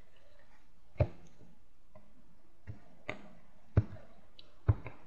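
A deck of cards handled and knocked against a tabletop: five short, sharp, irregular taps, three of them louder.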